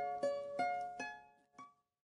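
Closing background music: a handful of plucked-string notes, each dying away, fading out and stopping a little over halfway through.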